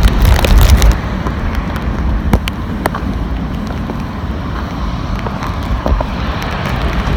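Storm wind buffeting the phone's microphone with a heavy low rumble, strongest in the first second, over a steady rush of wind and surf, with a few scattered sharp clicks.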